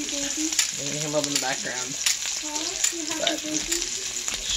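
Bacon sizzling in a frying pan: a steady frying hiss with frequent sharp pops of spitting fat.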